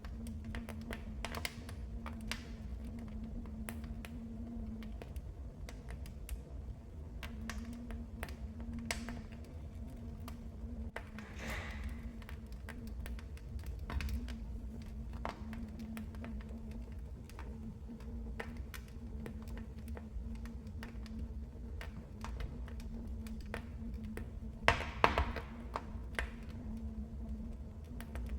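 Wood fire crackling in a fireplace: irregular sharp pops and snaps over a low steady rumble of the flames, with a short hiss about twelve seconds in and a loud flurry of pops near the end.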